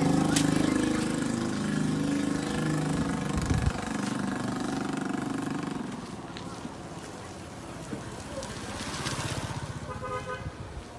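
An engine running, fading away about halfway through, with a brief horn-like tone near the end.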